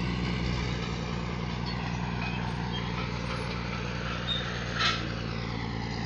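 Diesel engine of land-clearing machinery running steadily with an even low drone, and a brief sharper sound about five seconds in.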